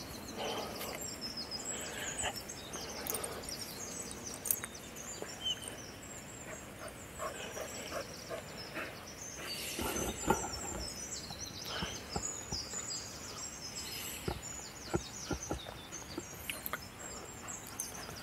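Small birds chirping and twittering over a steady outdoor background, with a few sharp knocks; the loudest knock comes about ten seconds in and several more follow a few seconds later.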